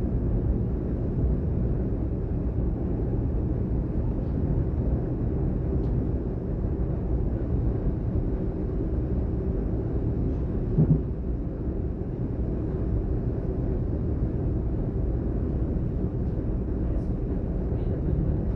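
Inside a DB Class 422 electric multiple unit on the move: a steady low rumble of wheels on rail and running gear. There is a brief louder low tone about eleven seconds in.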